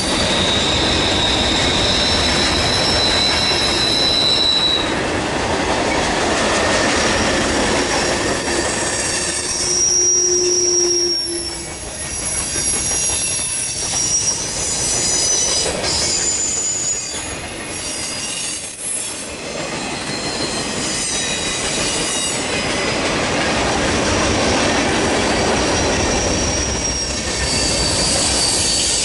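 Freight train cars rolling past at speed: a steady rumble of wheels on rail with clacking over rail joints. High-pitched wheel squeals come and go, strongest in the first few seconds and again around the middle. The rumble eases for a stretch about halfway through and then builds again.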